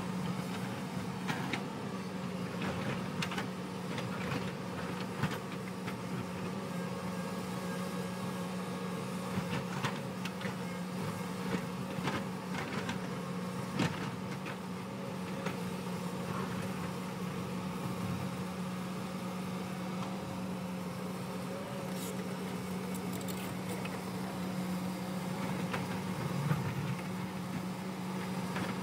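Hyundai crawler excavator's diesel engine running steadily under load as its bucket digs into a rocky slope. Scattered knocks and clatter of rock and stones come through at irregular moments.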